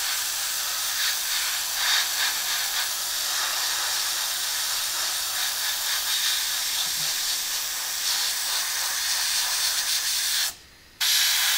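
Airbrush spraying paint: a steady hiss of air and paint, which cuts off for about half a second near the end and then starts again.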